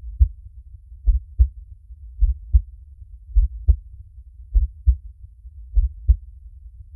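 Heartbeat, slow and steady: six lub-dub double beats, a little over a second apart, over a steady low rumble.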